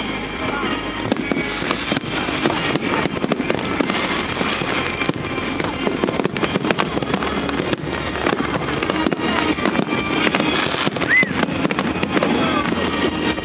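Aerial fireworks display going off: a dense, continuous run of bangs and crackles.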